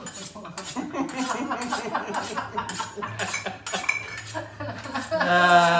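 Cutlery and dishes clinking and knocking while a jerky marinade is mixed. A voice holds a short note near the end.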